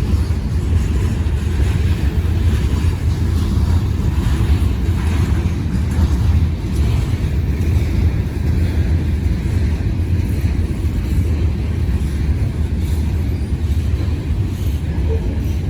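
Freight train cars rolling past at close range: a steady, heavy low rumble of steel wheels on the rails.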